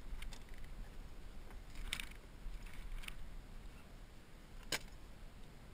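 A handful of short, sharp clicks and taps of fishing gear and a landing net knocking against a plastic kayak, spaced a second or so apart, the sharpest near the end, over a low steady rumble.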